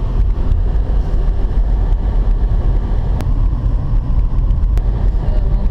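Cabin noise of a 2006 Suzuki Grand Vitara being driven: a steady low rumble of engine and tyres on the road.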